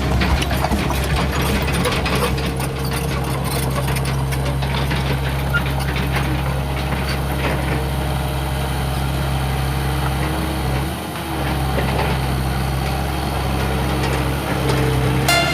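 Steady low engine drone like a heavy truck idling, dipping briefly about eleven seconds in.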